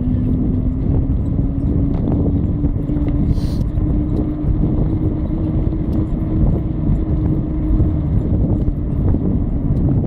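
Dog-drawn kick scooter and trailer rolling on tarmac: a steady low rumble of wheels on the road with a hum that rises slowly in pitch as the dogs pick up speed.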